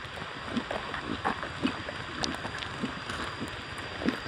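Footsteps walking on a dirt path, about two steps a second, over a steady outdoor hiss.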